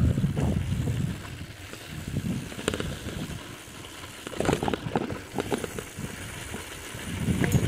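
Wind buffeting the microphone in gusts during a bicycle ride on a dirt trail, with scattered clicks and rattles from the bike. The wind is loudest at the start and again near the end.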